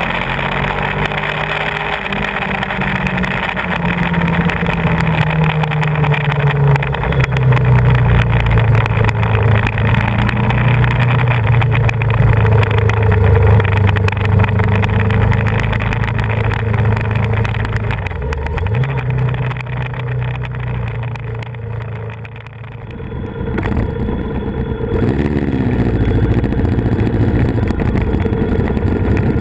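Yamaha VMAX 1700's V4 engine running under way, its pitch rising and falling with the throttle, over wind and road noise. Late on it drops away briefly, then picks up again.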